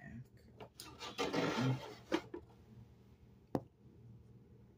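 Handling noise: rubbing, then a couple of clicks, the sharpest about three and a half seconds in.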